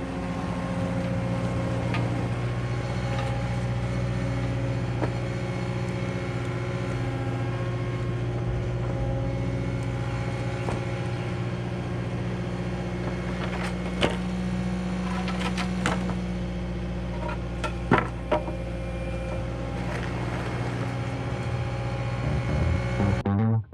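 Diesel engine of a Cat construction machine running steadily under work. Sharp knocks come about two-thirds of the way through as small logs are handled.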